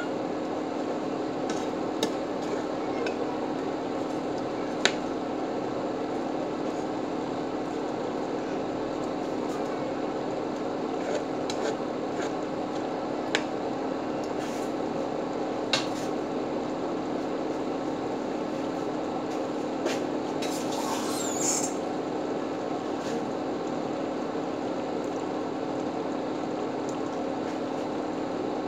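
A metal spoon clinks sharply against a large pan now and then, about six times, while basting fish simmering in sauce, over a steady low hum. There is a brief high squeak a little past two-thirds of the way through.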